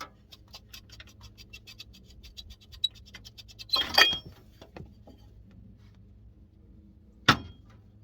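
Ratchet wrench clicking rapidly, about eight clicks a second, then a loud metal clatter about four seconds in and a single sharp metal clank near the end.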